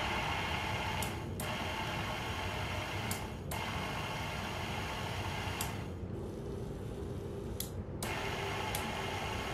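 775 DC motor spinning a nylon brush wheel against a tile floor joint: a steady, hissing whirr. It breaks off briefly twice, drops away for about two seconds in the middle, then comes back.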